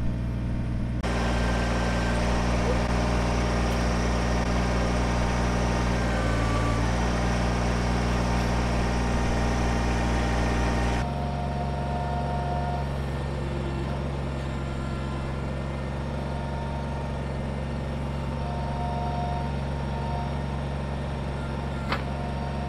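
Kubota BX23S compact tractor's three-cylinder diesel engine running at a steady speed. Its tone changes abruptly about a second in and again about eleven seconds in.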